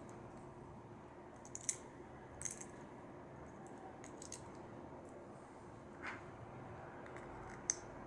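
Faint, scattered clicks of small plastic Lego minifigure parts being handled and snapped together.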